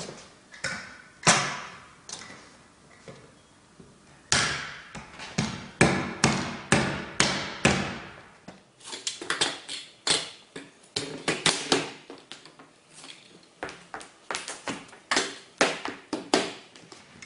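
Sharp knocks and taps on a wooden plank floor, coming in irregular runs, with a spell of about two a second from around four to eight seconds in.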